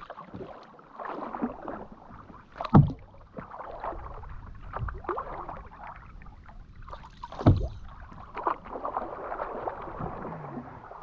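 Paddles working a small boat through river water, with uneven splashing and scraping, and two loud, sharp knocks, a little under three seconds in and again past halfway.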